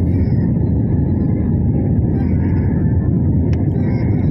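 Jet airliner cabin noise: the steady low roar of the engines and airflow, heard from a seat by the wing.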